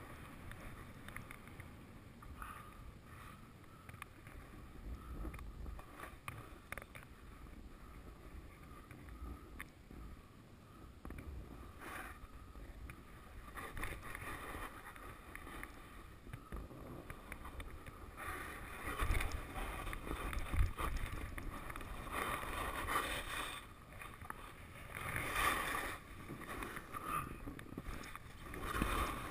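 Skis swishing and scraping over soft spring snow during a run through the trees, getting louder with several surges in the second half as the turns come harder.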